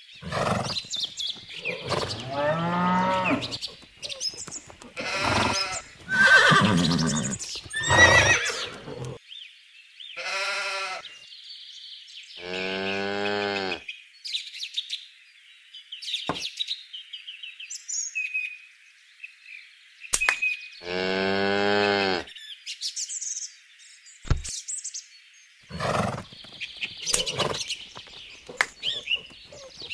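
Farm-animal sound effects: a run of separate animal calls, among them long, quavering sheep bleats about halfway through and again about two-thirds of the way through, over a background of bird chirping. A few sharp clicks fall between the calls.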